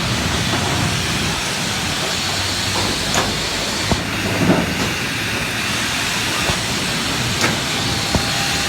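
Robotic stud-welding cell on a car body line: a steady hissing plant noise, with about six short sharp cracks spread through it as studs are welded onto the body.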